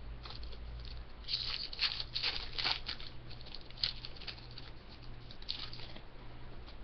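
Crackling and rustling of a foil hockey-card pack wrapper being handled and opened, with the cards shuffled through, in short bursts of crackles thickest in the first half. A steady low electrical hum runs underneath.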